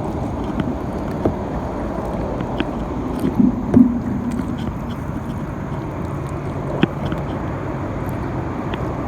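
Kayak and paddle knocking while squeezing under a fallen log: scattered light clicks and a couple of louder thuds about three and a half seconds in, over a steady rushing noise.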